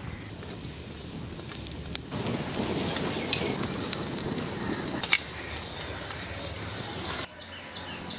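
Open wood fire burning, crackling with scattered sharp pops. The flame noise grows louder about two seconds in, one loud pop comes about five seconds in, and the sound drops suddenly about seven seconds in.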